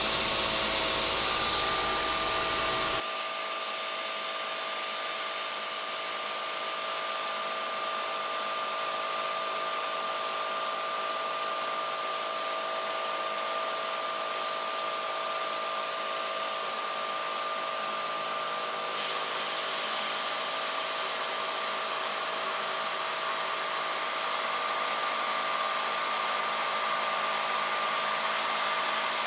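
CNC milling machine spindle running steadily at 3,000 RPM with a steady whine, under the hiss of a mist coolant spray, as a 5/16-inch four-flute solid carbide end mill cuts steel. The hiss is louder for the first three seconds, then drops suddenly.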